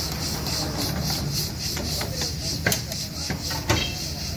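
Metal spatulas scraping and stirring food in a steel karahi wok over a wood-and-charcoal fire, in repeated rasping strokes. Two sharp metal clanks come in the second half, about a second apart.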